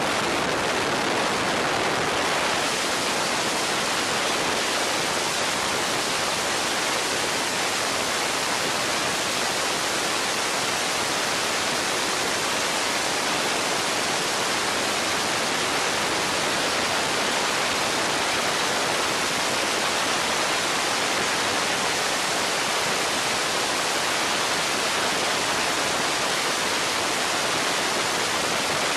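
Steady rush of wind over the onboard microphone of an open-wheel race car at speed, with no clear engine note above it.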